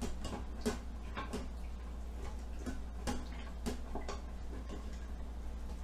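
Wooden spoon scraping and knocking against the bottom of a stainless steel Instant Pot inner pot, deglazing browned bits with chicken broth: irregular light clicks, a few a second.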